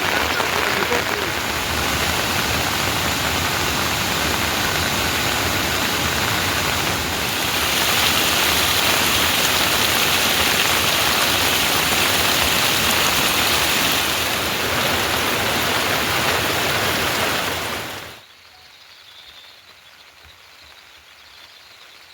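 Heavy rain falling in a steady, loud downpour that cuts off suddenly about 18 seconds in, leaving a much quieter background.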